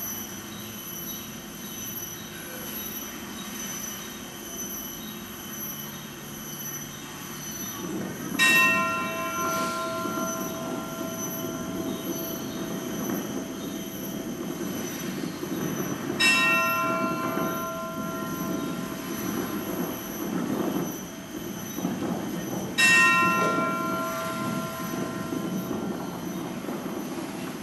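A bell is struck four times, about every seven seconds, and each strike rings on for a few seconds. Under it runs a low rumbling drone that swells in the middle, with a faint steady high whine.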